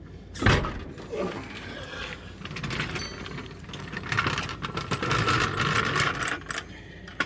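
Steel jack stand and jack being set under a pickup: a heavy metal clunk about half a second in, then irregular metallic rattling and ratchet clicking.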